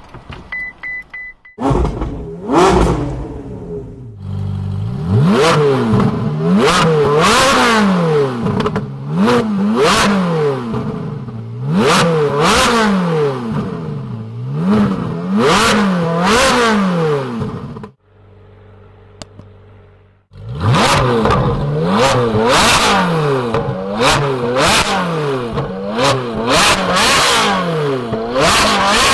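Ferrari 458 Speciale Aperta's naturally aspirated 4.5-litre V8 through a Fi Exhaust valvetronic muffler. A short beep, then the engine starts and is revved in repeated blips that rise and fall about every second and a half, first with the exhaust valves closed. After a brief quiet idle about 18 seconds in, the blipping resumes with the valves open.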